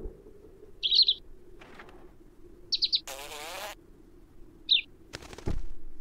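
Three short bursts of high small-bird chirping, about a second in, near the middle and again about a second later, with a brief rustling noise in between. A dull thump near the end.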